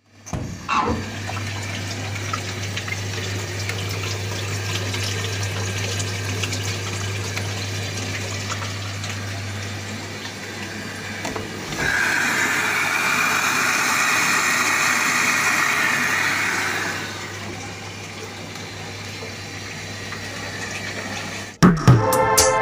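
Water running inside an Electrolux front-loading washing machine, over a steady low hum from the machine. The water hiss grows louder for about five seconds midway, then settles back.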